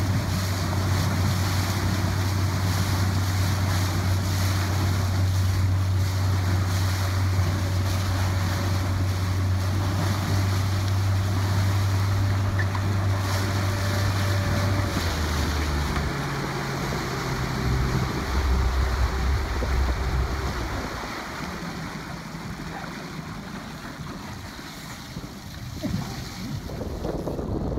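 Wind buffeting the microphone over rushing water on a moving motorboat, with the boat engine's steady low hum; the hum shifts and wavers about halfway through, and the whole sound softens somewhat in the last third.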